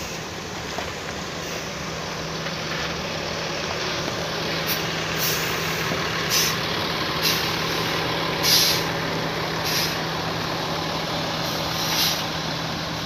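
Intercity coach's diesel engine running steadily as it crawls up a rough dirt climb, with repeated short air-brake hisses from about five seconds in.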